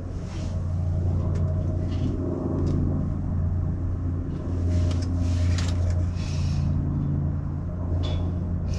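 A steady low motor hum, with scattered short rustles and light clicks of treats being handled.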